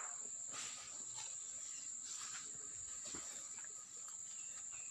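Steady high-pitched insect drone, with a few soft scuffs now and then.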